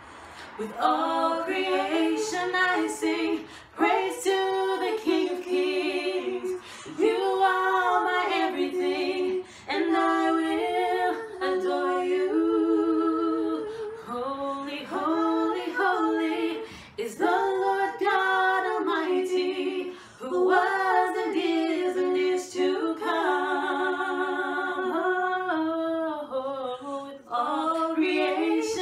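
Two women singing together a cappella in a tiled bathroom, in phrases of long held notes with vibrato and short breaks for breath.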